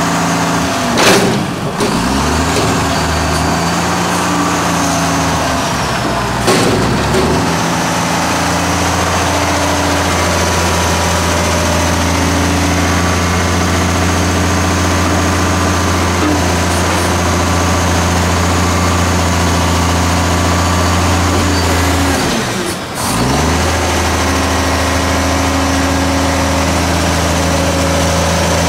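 McNeilus front-loader garbage truck's diesel engine running steadily. Brief sharp noises about one, six and twenty-three seconds in, each with the engine note dipping and recovering.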